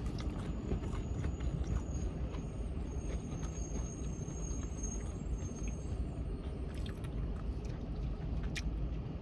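Steady low background rumble, with a few faint crunches as crispy Korean-style fried chicken is bitten and chewed.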